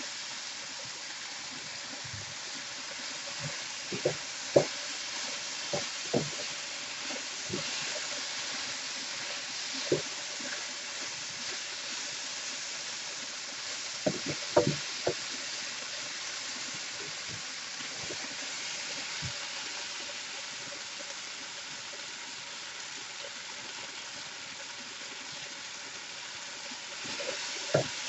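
Stew beef sizzling steadily in a hot pan as it browns, the liquid from the meat boiling off. A few short knocks and clicks break in, a cluster about four seconds in and another around fourteen to fifteen seconds.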